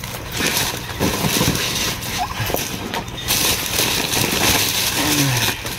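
Plastic shopping bag and chocolate box packaging rustling and crinkling as they are handled, in an uneven stream of small rustles.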